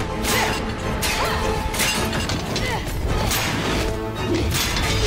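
Dramatic film score under fight sound effects: a run of sharp hits and crashes, about one a second.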